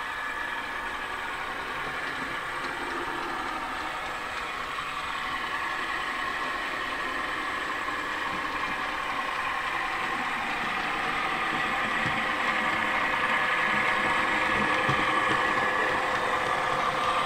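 H0-scale model freight train passing with a red diesel locomotive, its digital sound decoder playing a steady diesel engine sound over the wheels rolling on the track. The sound grows gradually louder as the train comes closer.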